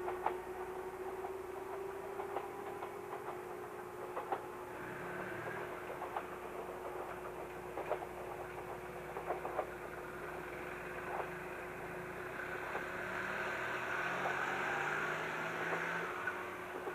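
Electric train running, with scattered sharp clicks over a steady rumble and hum; the noise swells about three-quarters of the way through, then eases.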